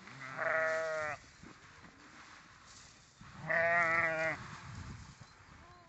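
Sheep bleating twice, each call about a second long; the second bleat comes about three seconds later with a wavering pitch.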